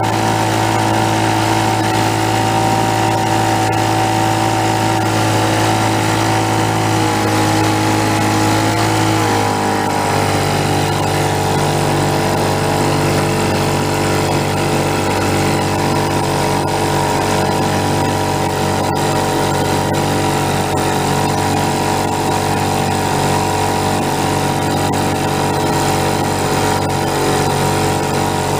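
Vintage two-stroke outboard motor running under way at steady power; its note shifts about a third of the way through, then holds steady again.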